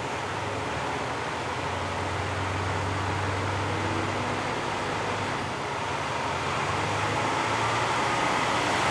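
Kanto Railway KiHa 2200-series diesel railcar pulling away from the platform, its diesel engine running under power with a steady low hum, growing gradually louder as the car starts to roll.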